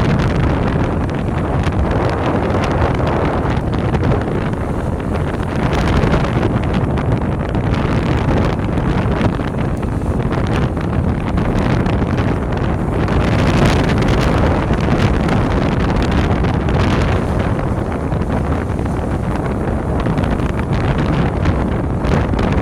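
Steady heavy wind buffeting on the microphone over the rumble of a moving vehicle.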